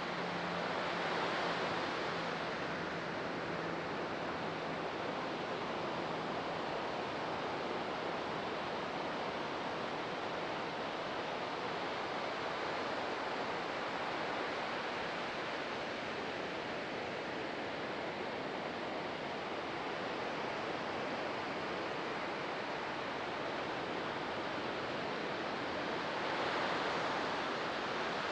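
Ocean surf breaking and washing ashore: a steady hiss of waves that swells twice, just after the start and near the end.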